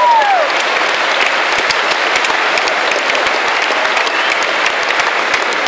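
Live audience applauding steadily, dense clapping from a large crowd in a hall. A short rising-then-falling tone sounds over the clapping at the very start.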